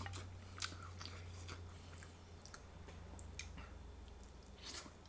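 A person chewing mouthfuls of reheated barbecue rotisserie chicken, with faint irregular wet clicks of the mouth, over a steady low hum.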